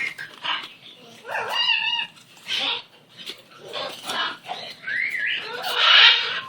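A pet animal's short calls and noises while it plays with a ball, including a call that rises in pitch about five seconds in.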